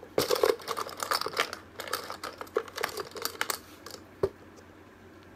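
A hand rummaging through loose poker chips in a box to draw one: a dense clatter of chips clicking against each other for about three and a half seconds, then a single sharp click.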